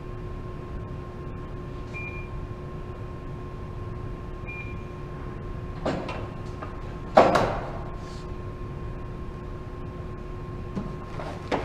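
Metal knocks and clanks at a tire balancer, the loudest a ringing clank about seven seconds in, over a steady shop hum; two short faint beeps sound early on.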